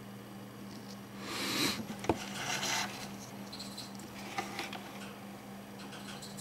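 Small handling noises of wires being fiddled with by fingers: a short rustle about a second in, a sharp click about two seconds in, then more rustling and a few faint ticks, over a steady low electrical hum.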